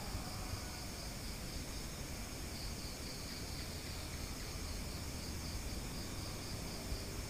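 Crickets chirping in a steady high trill that pulses evenly, over a low background hum.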